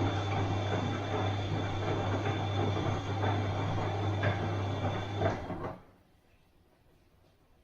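Bosch washing machine running with a steady low hum and a faint high whine, a couple of light clicks, then stopping abruptly about five and a half seconds in, leaving a quiet room.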